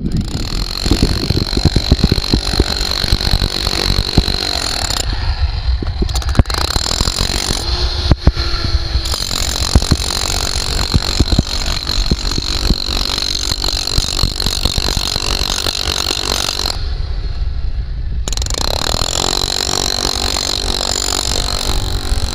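Hand-held power tool running in long bursts, a rattling sound with a steady high whine. It stops briefly three times and starts again, while a low rumble carries on underneath.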